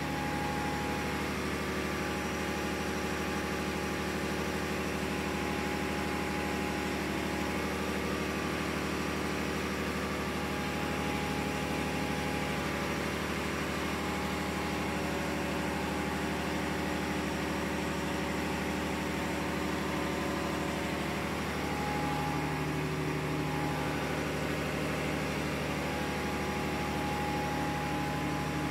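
Steady drone of running ship's engine-room machinery: an even hum with several held tones that does not change in level.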